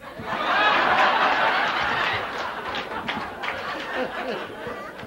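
Audience laughing, rising quickly to a loud peak and trailing off after about two seconds.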